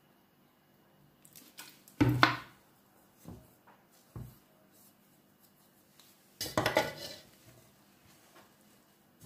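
A metal fork scraping and knocking against a glass mixing bowl while milk is mixed into flour for dough. The sound comes in a few short clatters, the loudest about two seconds in and another cluster about six and a half seconds in.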